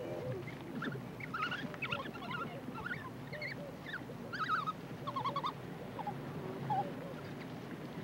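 African wild dog pups twittering and squeaking as they squabble over scraps of meat: a run of short, high calls that rise and fall in pitch, thickest in the middle of the stretch.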